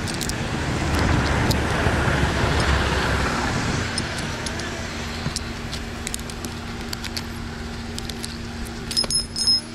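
Engine of an Irus carrier that drives a winch, running with a steady hum. About a second in, a swell of rushing noise rises over it for a few seconds and then fades. Near the end comes a brief metallic jingle.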